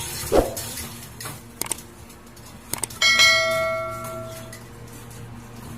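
A single bell-like metallic ring about three seconds in, struck once and fading over about a second and a half, after a dull thump and a few light clicks.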